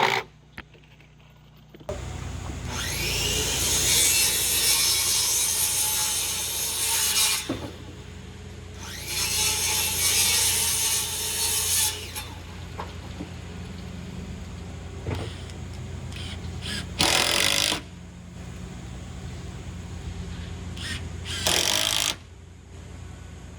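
A power tool working into wood in four bursts, the first two long (several seconds each) and the last two short, over a steady low hum.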